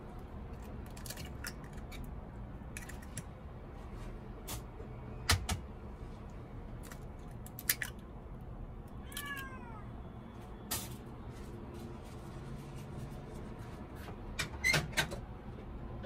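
A house cat meowing, with one clear falling meow about nine seconds in. Sharp taps and cracks of eggs being broken into a bowl come in between.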